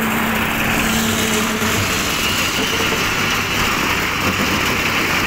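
Small engine running steadily; its hum drops away about two seconds in, leaving a steady rushing noise.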